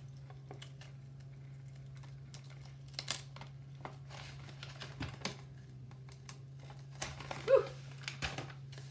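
Tape and kraft-paper wrapping being peeled off a paper notebook by hand: scattered soft rustles, crinkles and light clicks, with a short pitched squeak about seven and a half seconds in.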